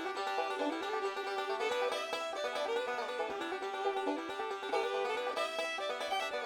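Background music with quick plucked-string picking and a steady beat.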